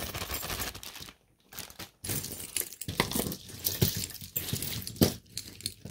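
Clear plastic bag crinkling as the last handful of tangled costume jewelry is pulled out of it, with metal chains and pieces clinking. The rustle pauses briefly about a second in, and a sharp clink stands out about five seconds in.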